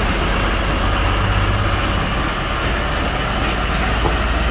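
Fire engine's engine running with a steady low drone, under a loud, even rushing hiss of hose water being sprayed onto a burning electric scooter.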